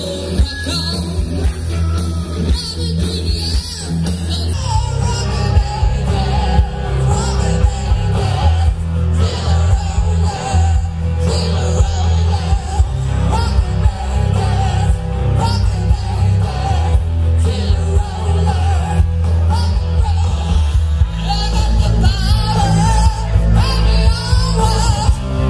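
Live rock band playing loud through a PA system: electric guitars and a drum kit over a heavy bass line, with a lead singer coming in a few seconds in.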